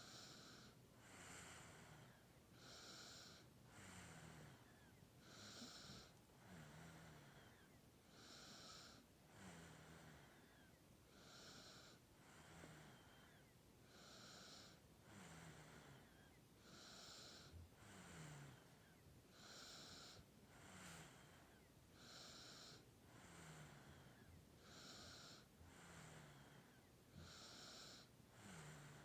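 A ten-month-old baby snoring softly in sleep. It is faint, with a breath about every one and a half seconds, many carrying a short low snore tone that falls in pitch.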